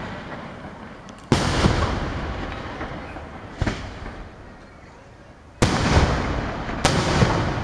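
Aerial firework shells bursting: four sharp bangs, the second weaker, the last two about a second apart. Each bang is trailed by a long rolling echo that fades away.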